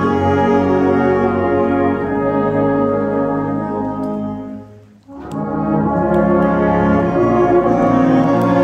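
Fanfare band of flugelhorns, saxophones and brass playing a slow arrangement of a northeast English folk song in sustained chords. The chord fades away about four and a half seconds in, and the band comes back in half a second later.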